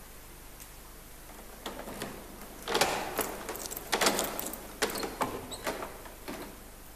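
A key working the lock of a metal safe door: a string of sharp metallic clicks and clunks, the two loudest about three and four seconds in, with keys jangling against the door.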